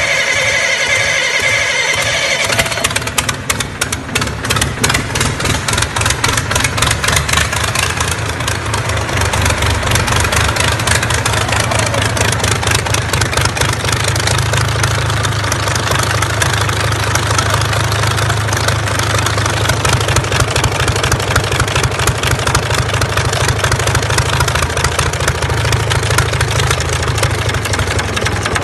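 Cold diesel engine, an inline multi-cylinder with its valve cover off and rocker gear exposed. For the first couple of seconds a whining tone is heard, typical of the starter still engaged. The engine then settles into running on its own with a steady low rumble and a rapid, even clatter from the open valve train.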